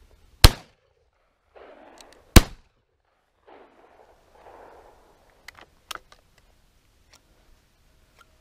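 Two shotgun shots about two seconds apart, each loud and sharp with a short echo tail, at a flying duck. A few faint clicks follow.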